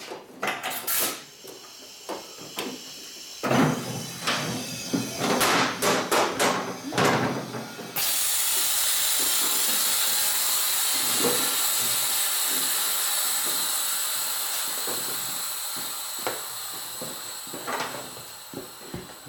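A few seconds of clattering and knocks, then about eight seconds in a sudden steady hiss of compressed air from a shop air hose, slowly growing fainter over the following ten seconds.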